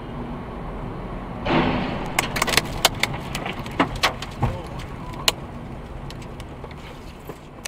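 Road noise inside a car driving on a wet highway: a steady low rumble, with a rush of road spray against the windshield about a second and a half in, followed by scattered sharp ticks.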